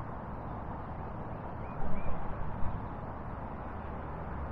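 Outdoor background noise with a low rumble and a louder rumbling stretch about two seconds in, plus two faint short bird chirps.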